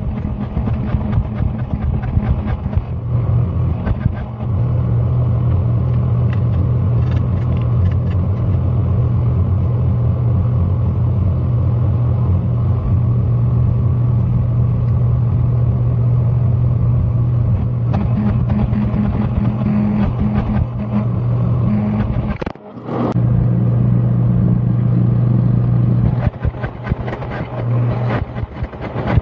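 Hydraulic forging press's motor and pump running with a steady low hum while hot steel bar is squeezed between its dies. The hum dips out briefly about three quarters of the way through and then resumes.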